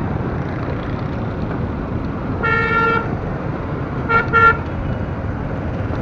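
A vehicle horn sounds once for about half a second, then gives two quick toots about a second and a half later, over steady road and engine noise from riding in traffic.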